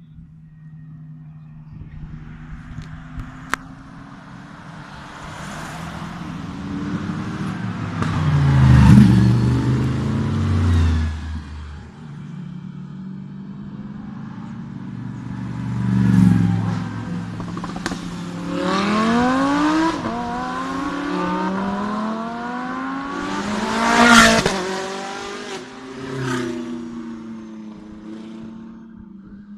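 Race car engines driving past one after another at close range, with a steady low engine drone underneath. The passes swell loudest about nine seconds in and again near twenty-four seconds, where a car revs up in a series of rising sweeps.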